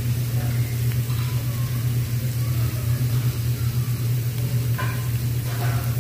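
Meat slices and small octopus sizzling on a tabletop Korean barbecue grill, over a steady low hum.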